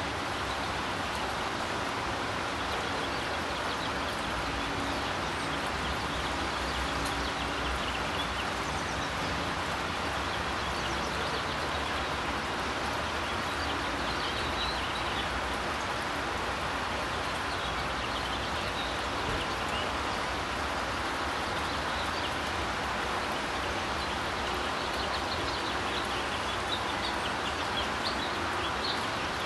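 Steady rain falling, an even hiss, with faint bird chirps now and then.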